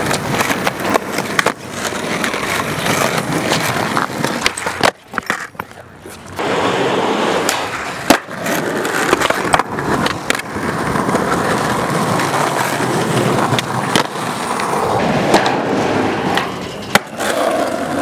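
Skateboard wheels rolling on rough asphalt, with several sharp clacks of the board being popped and landed; the loudest clack comes a little before the middle. The rolling drops out briefly about five seconds in.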